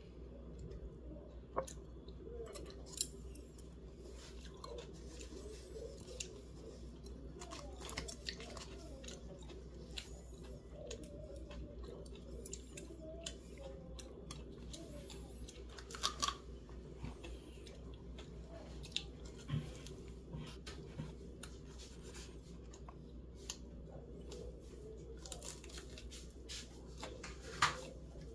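Someone eating fried chicken: scattered crisp clicks and crackles as the crispy coating is picked apart by hand and chewed, with a few sharper snaps, over a steady low hum.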